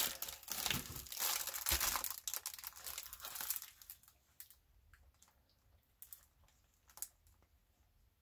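Plastic packaging crinkling as a bundle of diamond-painting drill bags is handled. The crinkling is dense for the first three and a half seconds or so, then thins to a few scattered crinkles and ticks.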